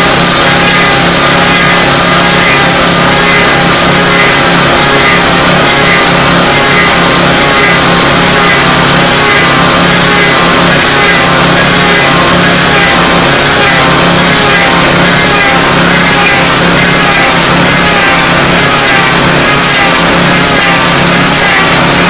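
Log lathe running flat out: the engine-driven knife head chipping bark off a turning cedar log to round it, a loud steady drone with a higher whine that wavers up and down about once a second.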